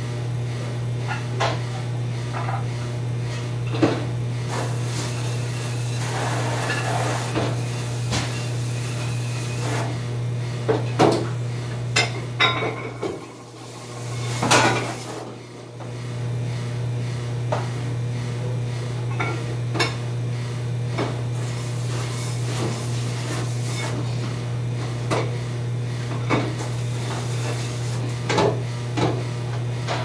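Dishes and cutlery clattering and knocking at a commercial dishwasher station over a steady low machine hum, with a few stretches of hiss. The hum drops out briefly around the middle.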